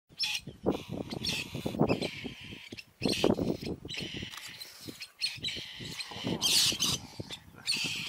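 A bird chirping and squawking in quick bursts over crackling rustles; the sound breaks off abruptly and restarts a couple of times.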